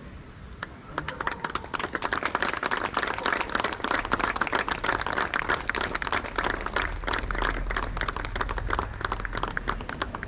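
A crowd of people clapping their hands, many quick irregular claps that start about a second in and keep going.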